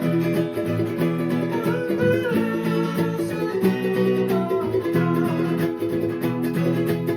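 Fijian sigidrigi string-band music: strummed guitars and ukulele playing a rhythmic accompaniment, with a melodic line over it.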